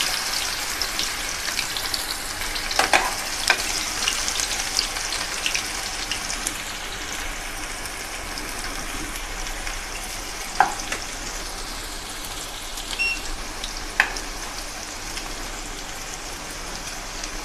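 Raw banana slices deep-frying in hot oil in an aluminium kadhai: a steady sizzle with dense crackling, busiest in the first few seconds as the last slices go in, then settling. A few sharp clicks of a metal spoon against the pan.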